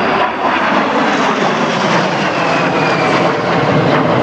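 De Havilland Vampire jet passing, its Goblin turbojet making a loud, steady rushing noise. A faint high whine falls in pitch in the middle.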